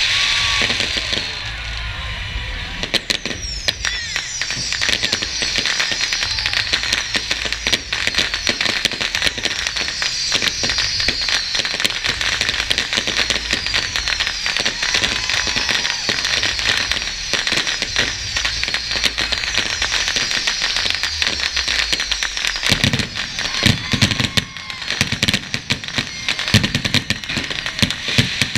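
Fireworks display: dense, rapid crackling and popping throughout, from shells and from fountains firing off the sides of a tower. Near the end come several heavier booms.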